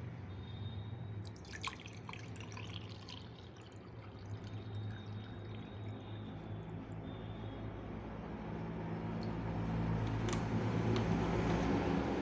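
Water dripping and splashing into a vessel, with a quick run of clinks and splashes between about one and three seconds in, over a steady low hum; a rushing hiss grows louder toward the end.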